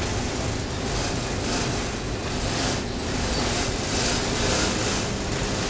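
Steady mechanical hum and hiss of a ship's machinery and ventilation running, even in level throughout.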